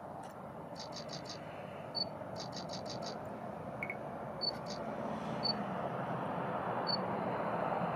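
Distant jet noise from the Boeing C-17A Globemaster III's four Pratt & Whitney F117 turbofans on landing approach, a steady rushing rumble that slowly grows louder as the aircraft comes closer. Short high chirps sound over it, single ones and two quick runs of four or five about a second and two and a half seconds in.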